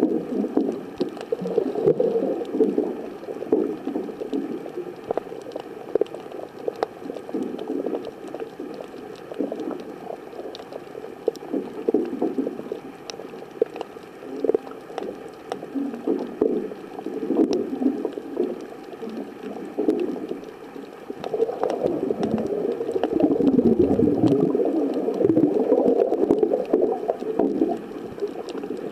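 Underwater water noise picked up by a waterproof compact camera while snorkeling: irregular gurgling and sloshing, with scattered faint clicks. It grows louder and more continuous for several seconds about two-thirds of the way through.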